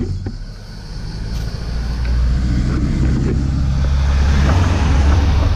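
Pickup truck's engine and tyres growing steadily louder as it approaches and passes close by the bicycle, over a low rumble.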